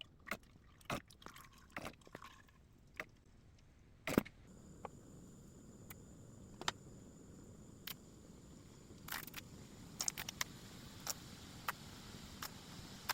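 Kitchen handling sounds: scattered light clicks and taps, with one louder knock about four seconds in. After the knock a faint steady hiss sets in, and the clicks carry on over it.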